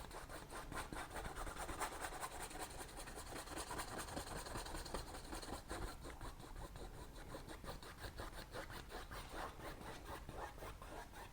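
Faint, steady scratchy rubbing of a filbert brush scrubbing oil paint onto a stretched canvas in rapid short strokes.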